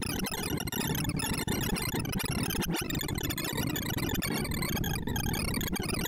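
ArrayVisualizer's sorting sonification during Batcher's odd-even merge sort on 1,024 numbers: a dense chatter of short synthesized blips at many pitches at once. Each blip is an array access, with its pitch set by the value being compared or swapped.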